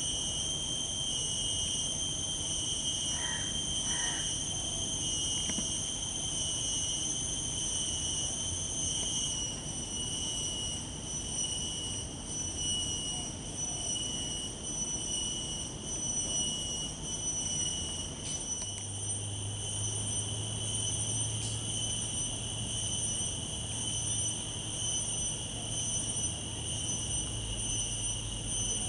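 Insects keep up a steady, high-pitched drone. A crow caws twice a few seconds in, and a low steady hum joins about two-thirds of the way through.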